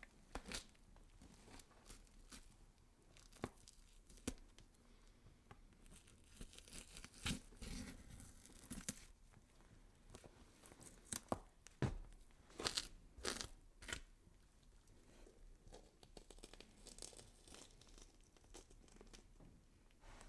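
Faint horror gore sound effect: irregular tearing and crunching with sharp cracks, like flesh being torn or cut, in clusters about a third of the way in and again past the middle.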